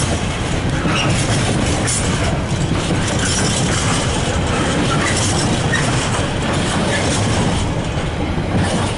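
Loaded container wagons of a freight train rolling past close by: a steady rumble of steel wheels on rail, with sharp clicks as the wheels cross rail joints.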